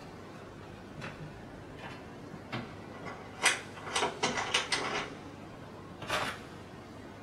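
Hands working on a Wilesco D24 toy steam engine, making scattered clicks and taps, then a quick run of sharp clicks about three and a half seconds in while the hand is at the cylinder and flywheel end. A short rustle follows about six seconds in as a small item is handled.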